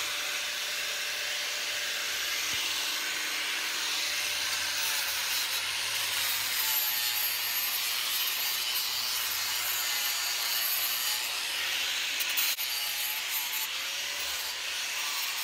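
Angle grinder with a sanding disc abrading the surface of a wood carving: a steady gritty rasp, with a faint motor whine that wavers as the disc is worked over the wood.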